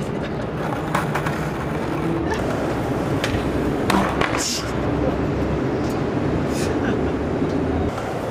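Skateboard wheels rolling on asphalt with a steady rumble, broken by a few sharp clacks of the board and a brief scrape about halfway. The rumble drops away just before the end.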